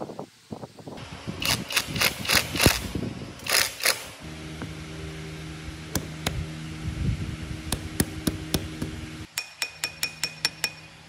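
Sharp, ringing metal clinks and taps as the steel gears and fittings of an old rolling planer are handled and fitted, over a steady low hum. Near the end comes a quick run of about eight ringing metallic clicks as a wrench works the nut on a gear shaft.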